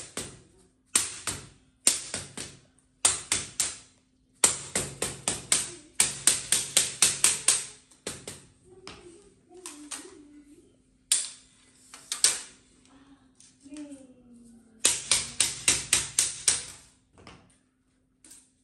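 Rubber mallet tapping along an aluminium screen frame in quick bursts of several blows, about five or six a second, with pauses between. The blows drive the frame strip in over the mesh so that it sits tight.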